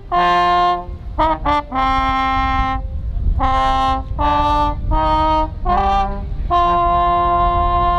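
Brass instrument playing a slow melody of mostly held notes, with a quick run of short notes about a second in and a long held note near the end, over a low rumble.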